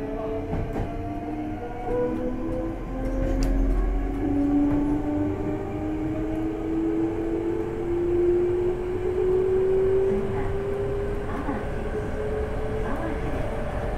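Hankyu 8300 series electric train, heard from inside the car, with its Toyo GTO VVVF inverter whining in several tones that climb slowly as the train gathers speed under power, over the running noise of the train.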